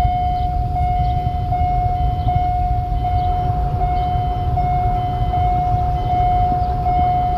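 Automatic level-crossing warning alarm sounding while a train approaches the crossing: a steady high electronic tone with short higher beeps repeating about every three-quarters of a second. A low rumble runs underneath.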